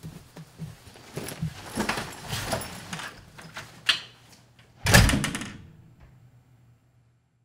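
Footsteps and shuffling on carpet, then an interior door swung shut and slamming about five seconds in, the loudest sound, ringing briefly before it fades.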